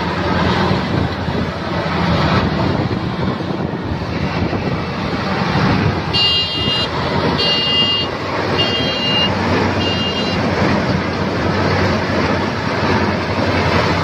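Agriona multi-crop combine harvester running: a steady, loud diesel engine and machinery noise. A little past the middle, a high beep sounds four times, evenly spaced about a second apart.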